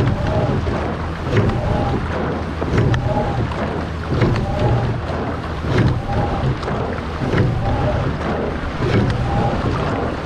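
Two-person rowing shell under way at race pace: water rushing along the hull and wind on the microphone, with a rhythmic knock and surge every stroke, about once every second and a half, as the sweep oars work in their oarlocks.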